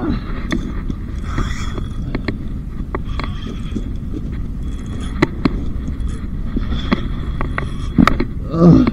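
Steady low wind rumble on the microphone, with scattered sharp clicks and knocks from handling the fishing rod and spinning reel. A short vocal exclamation near the end is the loudest sound.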